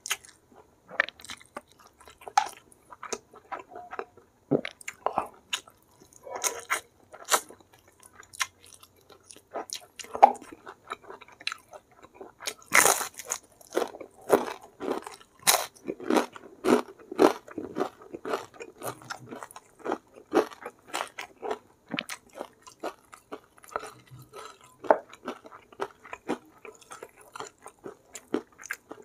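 Close-miked chewing and biting of food eaten by hand. There is a dense run of loud crunches about halfway through as crisp fried tempeh is bitten and chewed, with softer wet chewing of curry and rice on either side.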